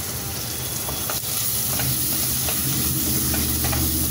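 Sliced onions sizzling in hot oil in a pressure cooker while a spoon stirs them, clicking and scraping against the metal pot. A low steady hum underneath gets louder about a second in.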